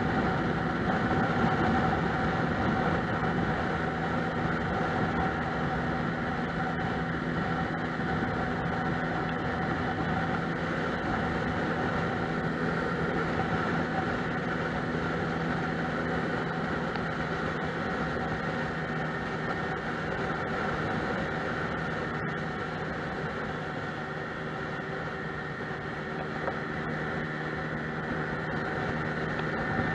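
Lexmoto Milano scooter's engine running steadily at cruising speed, with road and wind noise, heard close up from the handlebars.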